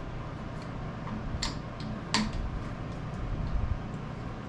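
A few light metallic clicks and knocks as a metal part is handled and seated in a chuck, over a low steady rumble of shop noise.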